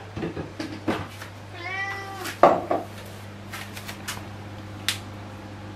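Domestic cat meowing once, about two seconds in, asking for food. A few sharp knocks and taps come with it, the loudest just after the meow.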